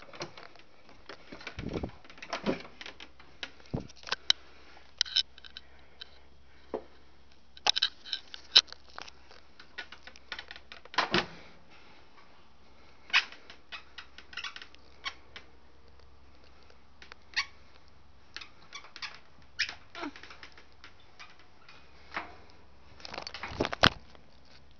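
Irregular clicks, knocks and rustles of handling and moving about among attic clutter, with a faint steady low hum that comes in about two seconds in.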